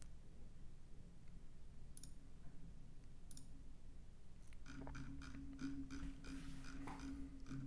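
Faint computer mouse clicks, then a quick run of scroll-wheel ticks about halfway through, over a low steady hum that comes in at the same point.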